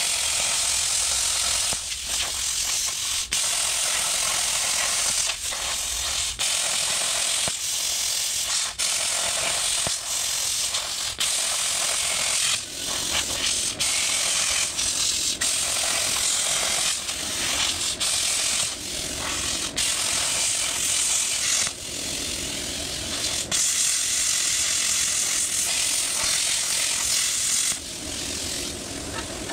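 A power cutting tool cutting through a rusty steel truck frame rail, a steady hiss that breaks off briefly and starts again every second or two, dropping away near the end.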